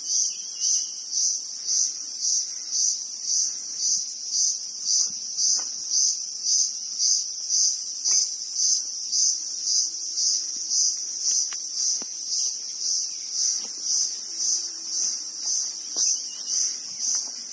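Loud insect chorus: a high, shrill buzzing that swells and fades evenly about two to three times a second.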